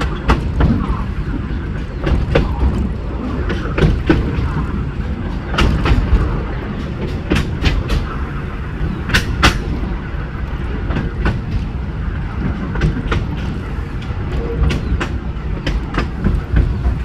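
Narrow-gauge train running: a steady low rumble with wheels clicking irregularly over the rail joints.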